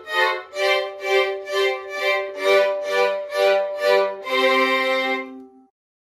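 A multi-tracked violin ensemble, one player overdubbed many times, playing short pulsing bowed chords about twice a second, then a held chord that cuts off about five and a half seconds in.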